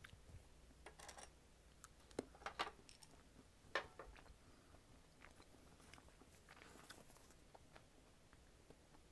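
Handling noise from wired earbuds being pushed into the ears and their cable adjusted: faint rustling with a few sharp knocks and clicks, the loudest about two to four seconds in.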